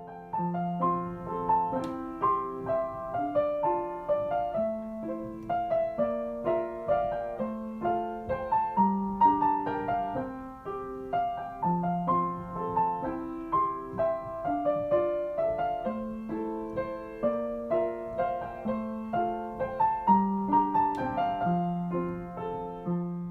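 Background piano music: a gentle melody of single notes over slower, held bass notes.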